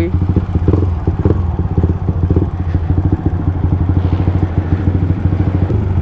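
Bored-up 170 cc Yamaha MX King single-cylinder four-stroke with an ROB1 aftermarket exhaust, running at low revs as the bike slows and then idling steadily at a stop.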